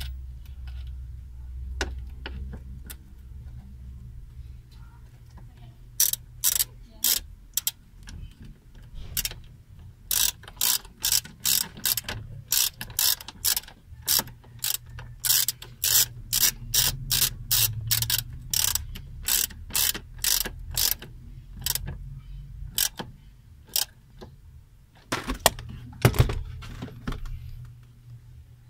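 Ratchet tool clicking as it drives in the screw that holds a ground wire to the car body: runs of short, sharp clicks, about two or three a second, starting about six seconds in and stopping a few seconds before the end, followed by a few louder knocks.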